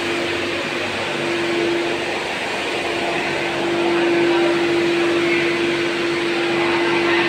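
Steady machine hum with one low steady whine through it, swelling a little about halfway through.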